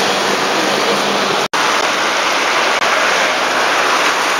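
Steady, loud rushing noise, cut off for an instant about a second and a half in.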